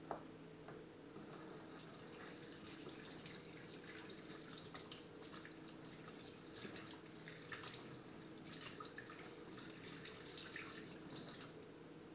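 Faint tap water running into a stainless steel sink and splashing over hands rinsing soap off a knife, with many small drips, splashes and clicks. A small sharp knock comes right at the start.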